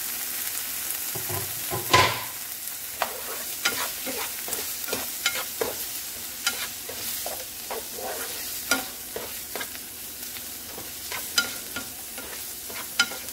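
Diced onions, tomatoes and habanero pepper sizzling in a little cooking oil in a non-stick frying pan, with a spatula scraping and tapping against the pan as they are stirred. A louder knock of the spatula comes about two seconds in.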